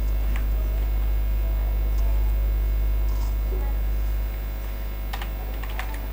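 Steady low electrical mains hum, with a few separate keystrokes on a computer keyboard as a word is typed slowly.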